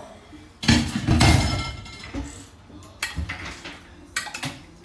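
A glass dish and spoon knocking and scraping against a ceramic serving bowl as food is tipped and scooped into it: a loud knock about a second in, then lighter clinks and scrapes.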